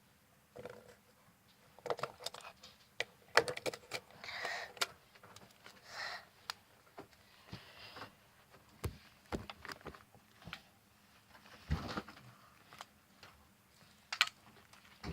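Fidget spinners being handled: irregular small clicks and taps with a few brief rustles, and no spinning whir.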